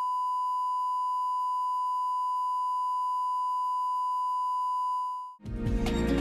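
Steady 1 kHz line-up test tone, the reference tone that goes with broadcast colour bars. It fades out about five seconds in, and music starts just before the end.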